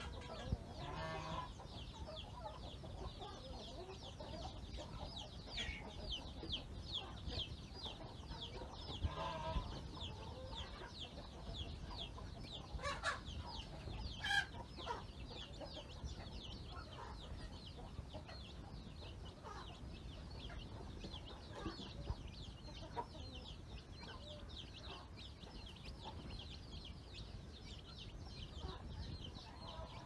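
A flock of young chickens (chicks) peeping in a dense, continuous chorus of short high chirps while they peck at feed. A hen clucks a few times over them, about a second in, around nine seconds and again around thirteen to fourteen seconds.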